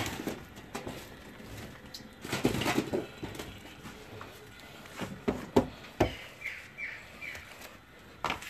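Open wood fire crackling with scattered snaps and pops, and a brief rustling noise a little over two seconds in. Three short bird chirps come about two thirds of the way through.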